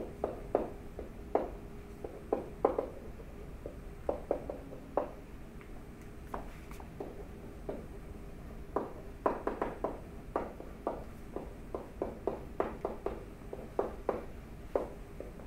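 Stylus tapping and scratching on a pen tablet during handwriting: quick, irregular clicks in small clusters, coming thicker from about nine seconds in, over a faint steady hum.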